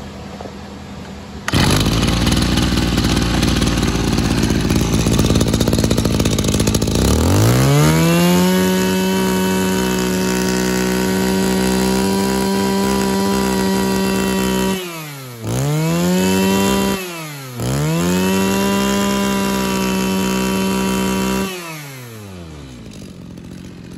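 Mitsubishi TL26 brush cutter's 26 cc two-stroke engine on a test start. It catches about a second and a half in and runs roughly at idle. About 7 s in it revs up to a steady high note, drops and picks up again twice, then winds back down to idle near the end.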